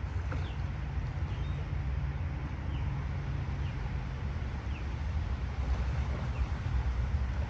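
Wind rumbling on the microphone, with a bird's short falling chirps about once a second.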